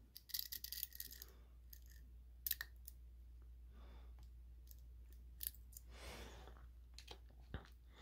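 Steel tweezers working in the pin chambers of a Mul-T-Lock cylinder to pull out the driver pins: faint, scattered small metal clicks and ticks, the sharpest about two and a half seconds in and another near five and a half seconds.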